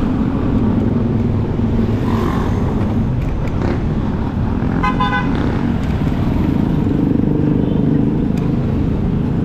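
Motorcycle engine running steadily while riding in traffic, with road noise, and one short vehicle horn toot about five seconds in.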